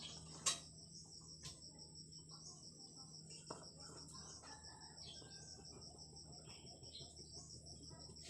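Faint insect chirping, likely a cricket: a steady, rapid, high-pitched pulsing, with a couple of soft clicks.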